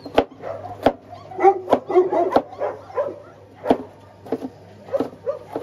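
Chinese cleaver chopping carrots on a wooden chopping board, a sharp knock every half second to a second, while dogs bark and whine in the background.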